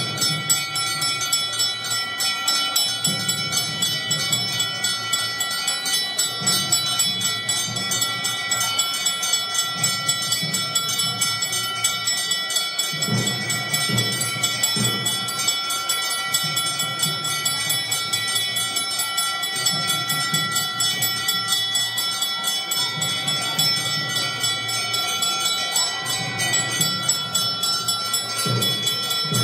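Temple bells ringing continuously with rapid, even strikes during the aarti lamp offering, their many ringing tones sustained throughout, with a lower sound that comes and goes underneath.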